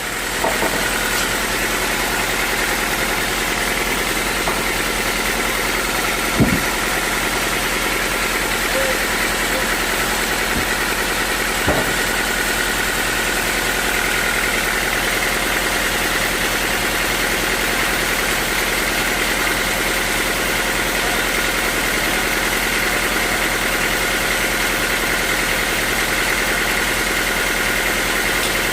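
Sawmill machinery running steadily, a continuous mechanical drone with a high steady whine, broken by two short knocks about six and twelve seconds in.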